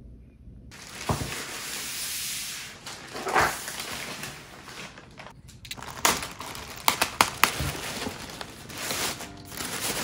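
Plastic poly mailer bag crinkling and rustling in hands, with sharp crackles as it is torn open. The rustling starts about a second in.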